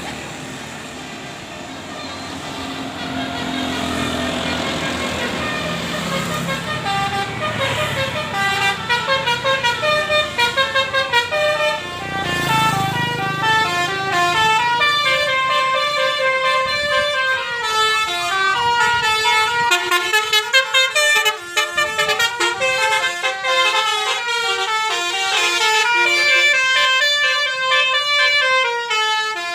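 Basuri 'telolet' musical bus horn playing a rapid tune of stepped horn notes, changing pitch every fraction of a second, over vehicle noise that builds during the first several seconds.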